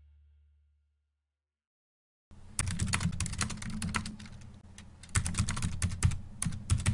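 Keyboard typing sound effect: rapid runs of key clicks, starting about two seconds in after a brief silence, thinning out briefly in the middle and picking up again. The tail of background music dies away at the very start.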